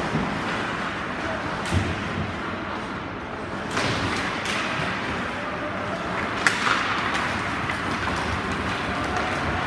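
Ice hockey play in a rink: a steady hiss of skates and arena noise, broken by three sharp knocks of stick on puck or puck against the boards. The loudest knock comes about six and a half seconds in.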